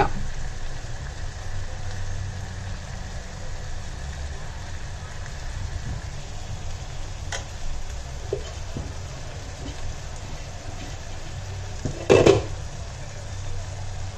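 Chicken curry with coconut milk sizzling in a nonstick pan as curry leaves go in and a steel spoon stirs it, with a few light clinks of the spoon against the pan and a low steady hum underneath. One louder brief sound comes near the end.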